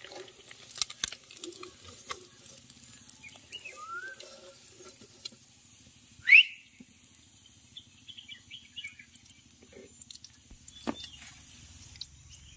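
Faint crackling and scattered clicks from hot oil in an aluminium kadai as fried fish are lifted out with a slotted metal spoon, with birds chirping. The loudest sound is one short rising chirp about six seconds in.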